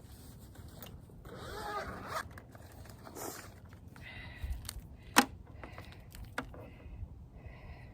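Handling noise from setting up a portable solar panel and its cable: rustling and scraping with a zipper-like rasp, and one sharp click about five seconds in.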